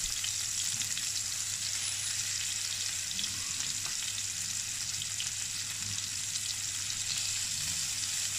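Raw beef burger patties frying in butter in a frying pan: a steady sizzle, with a low steady hum underneath.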